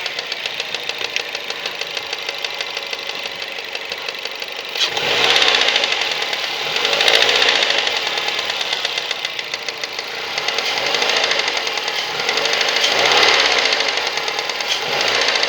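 Mazda 3 1.6 petrol engine running with a fast, even knocking, the revs rising and falling several times. The owner puts the knock down to the intake manifold flaps.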